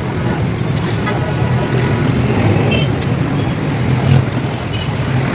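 Steady road traffic noise: passing vehicles' engines running as a continuous low rumble.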